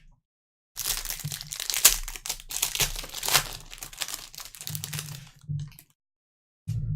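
Foil trading-card pack wrapper being torn open and crinkled by hand, a dense run of crackling that stops about a second before the end, then a short handling bump.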